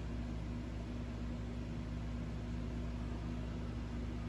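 Steady low hum with an even hiss over it, unchanging: background machine or room noise with no other event.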